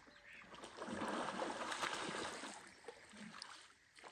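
River water sloshing and swishing close by: a rough hiss that swells about half a second in, holds for a couple of seconds and fades, with a few small splashes.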